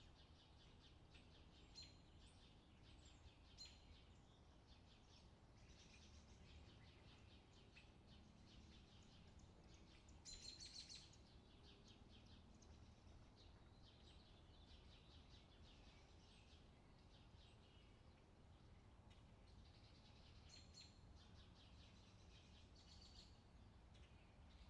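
Faint birdsong: many quick high chirps and twitters, with a brief louder flurry of chirps about ten seconds in, over a low steady hum.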